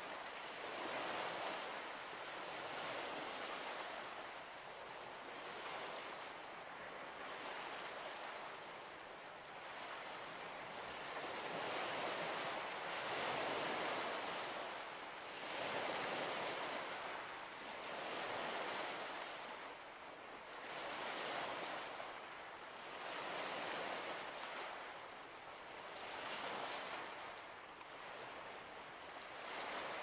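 Small waves washing onto a shore, a continuous wash of water swelling and easing every two to three seconds.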